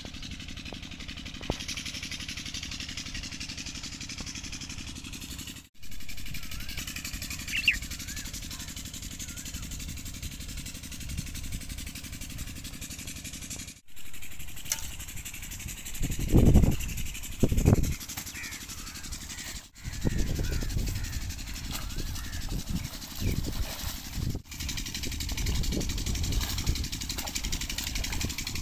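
Steady low engine hum, with outdoor noise over it. Two heavy thuds come about halfway through.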